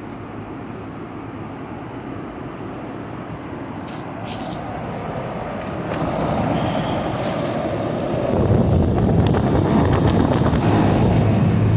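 Outdoor air-conditioning condensing units running in cooling mode: a steady fan rush with a low compressor hum. It grows louder about six seconds in and again about eight seconds in, where the low hum comes up strongly.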